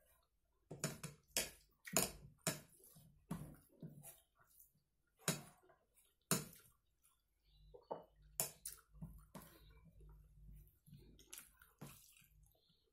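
Close-up eating by hand: rice and dal are squished between the fingers on the plate and chewed, making wet smacking clicks. The clicks come thick and sharp for the first six seconds or so, then sparser and softer.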